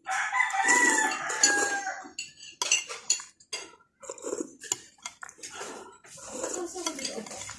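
A rooster crows once near the start, a held call of about two seconds. Then spoon and fork click against a ceramic bowl during eating.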